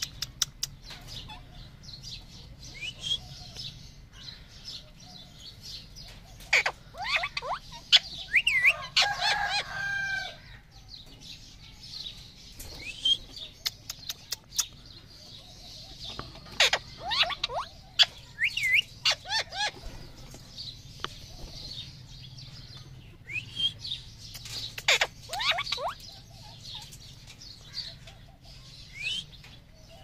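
Alexandrine parakeet squawking in several bouts of short, sharp, sweeping calls, with a longer warbling phrase about nine seconds in and one last call near the end.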